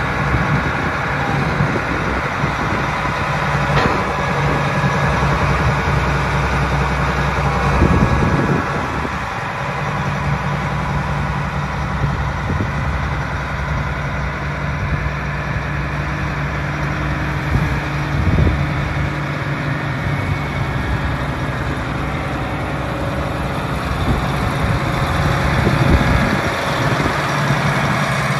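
John Deere 8640 tractor's six-cylinder diesel engine running with a steady note, broken by a few brief louder noisy moments.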